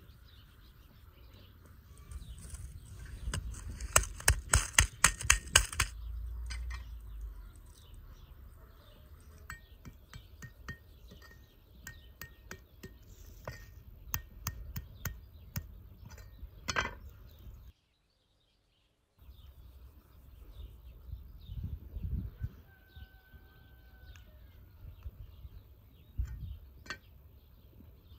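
Sharp knocks and taps of a knife on a wooden tree-stump chopping block while garlic and a tomato are prepared, coming in clusters, the loudest a quick run of about eight knocks a few seconds in. Birds chirp faintly.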